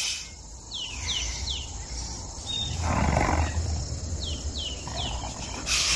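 Tiger growling once, about three seconds in, over a low steady rumble of forest ambience. A bird calls in quick falling whistles, three at a time, twice.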